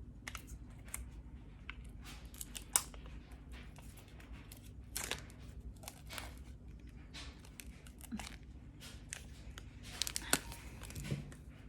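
Plastic wrap and sealing stickers being peeled and torn off a convenience-store ramen bowl, with scattered irregular crinkles and small tearing sounds.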